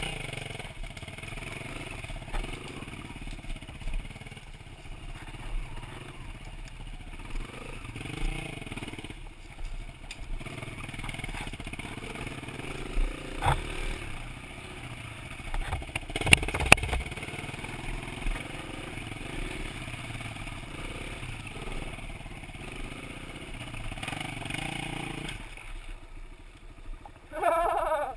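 Kawasaki KLX140L trail bike's small single-cylinder four-stroke engine running under changing throttle on rough dirt, with the bike clattering over ruts and a few sharp knocks around the middle. A short, louder rise and fall in revs near the end.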